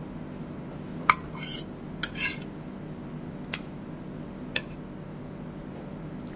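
Tableware clinking during a meal: a handful of short, sharp clinks of a utensil against a plate or bowl, the loudest about a second in. A steady low hum runs underneath.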